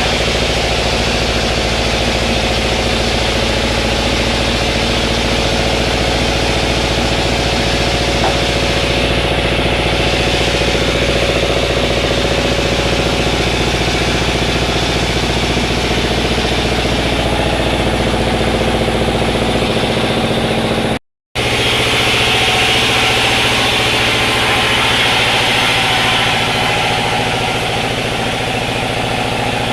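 Sawmill machinery running steadily with a constant engine-like drone and hum. It cuts out briefly about two-thirds of the way through, then carries on with a slightly different hum and more hiss.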